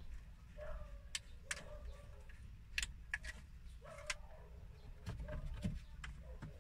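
Scattered sharp plastic clicks and taps from a car stereo head unit and its wiring harness plugs being handled and fitted.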